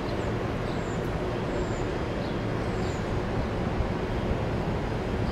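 Steady city traffic rumble, with a few short high chirps in the first three seconds.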